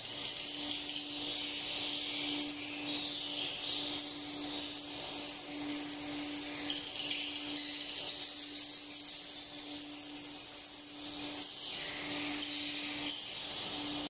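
Dense, continuous high-pitched twittering of swiftlet calls filling a swiftlet house, over a steady low hum.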